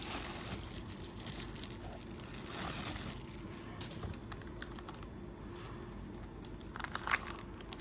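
Camera-box packaging being handled: light rustling with many scattered small clicks and taps, a slightly louder cluster of them near the end.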